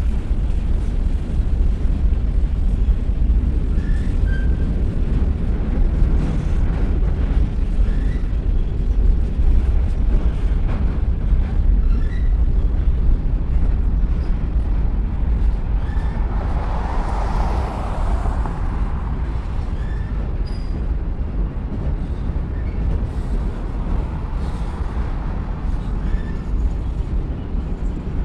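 Freight train cars rolling slowly over a railroad bridge: a steady low rumble. About two-thirds of the way through a brief hiss swells and fades over it.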